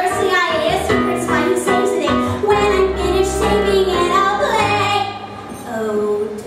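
A woman sings a contemporary musical theatre solo to piano accompaniment played on a stage keyboard. The vocal line softens a little near the end.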